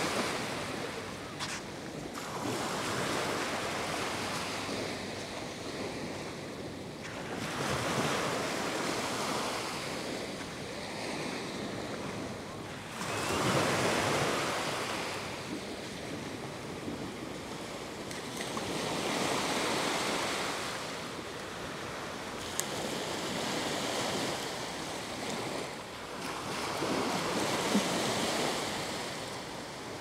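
Small Gulf of Mexico waves washing up on a sandy beach, the surf swelling and fading every five or six seconds.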